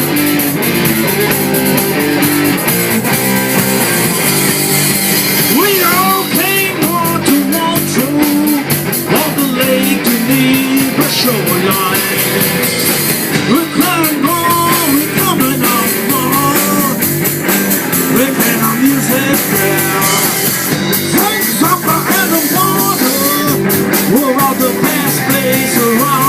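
Rock band playing live and loud: guitar and drum kit, with a voice singing from about six seconds in.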